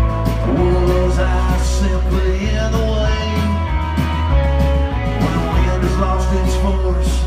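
Live rock band playing, heard through a phone or camera microphone: electric and acoustic guitars over steady bass notes and a regular drum beat.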